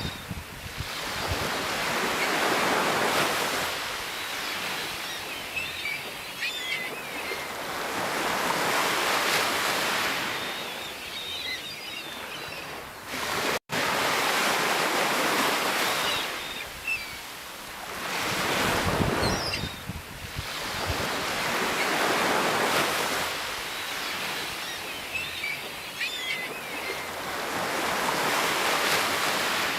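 Sea waves breaking and washing up the shore, the rush swelling and ebbing about every five to six seconds. There is a brief break in the sound about halfway through.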